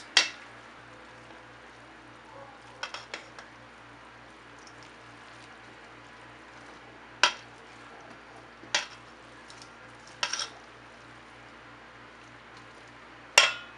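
Kitchen tongs tossing spaghetti in a stainless steel mixing bowl: about six sharp clinks against the bowl, one to three seconds apart, over a faint steady hum.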